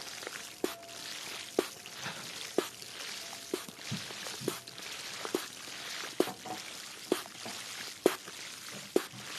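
Water trickling steadily as an ASMR trigger, with a short, sharp plink about once a second.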